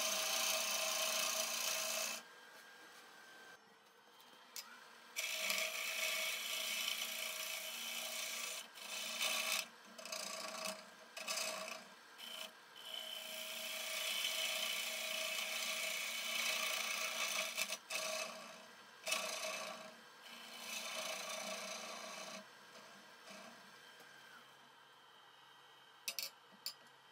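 Bowl gouge cutting the inside of a spinning maple bowl on a wood lathe: a shaving hiss in several passes of a few seconds each, with quieter gaps between as the tool is lifted, over the lathe's faint motor hum. Near the end the cutting stops, and two short clicks follow.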